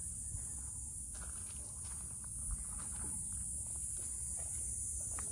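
Footsteps on a hiking trail, faint irregular steps, under a steady high-pitched drone of insects, with a low rumble underneath.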